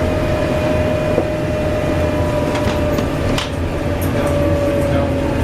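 Volvo Olympian double-decker bus running, heard from inside: a steady low engine drone with a held transmission whine that sinks slightly in pitch, and a few light rattles from the bodywork.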